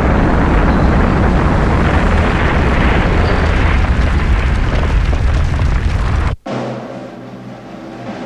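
A loud, steady rumbling roar, a destruction sound effect, cuts off abruptly about six seconds in. Sustained brass music follows.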